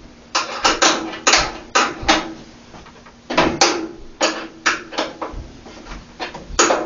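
A dozen or so irregular, sharp metallic clinks and knocks from hand-fitting a bolt and washer parts while trying to get the bolt to start threading.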